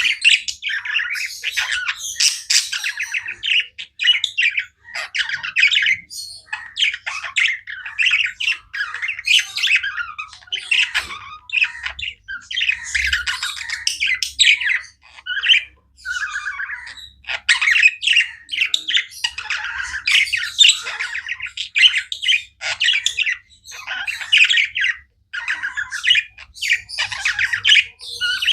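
Several budgerigars chirping and squawking without a break: a dense run of short, high calls with only brief pauses between them.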